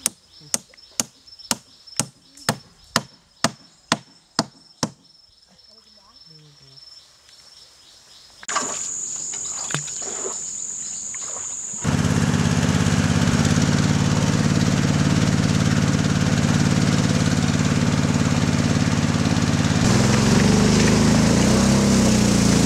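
A series of sharp knocks about two a second for the first few seconds, then a high steady insect buzz, then about halfway through a boat's engine starts running loudly and steadily.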